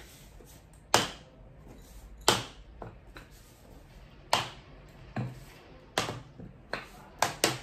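Lids and other small items being picked up and set back down on a countertop while it is dusted: a series of about eight sharp knocks at irregular intervals, with a quick pair near the end.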